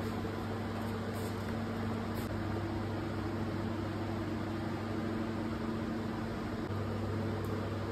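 Steady machine hum: a constant low drone with a fainter higher hum over an even hiss.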